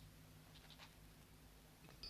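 A pen scratching faintly on paper in a few short strokes as a document is signed, over a low steady hum.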